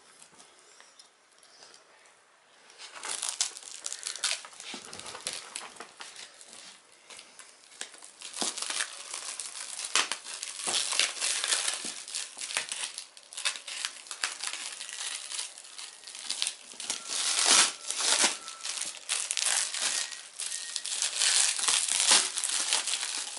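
Black plastic wrapping on a parcel crinkling and tearing as it is cut and pulled off by hand. It is faint for the first couple of seconds, then becomes dense, continuous crackling that grows louder toward the end.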